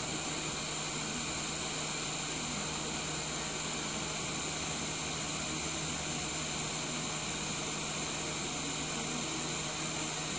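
Hot air rework gun blowing a steady hiss of hot air onto a surface-mount PWM controller chip to melt its solder and desolder it, with a steady low hum under the hiss.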